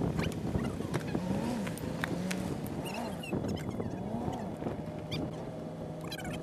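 Pickup truck engine running as the truck drives up and stops close by, with scattered clicks and crunches from people moving on rocky ground.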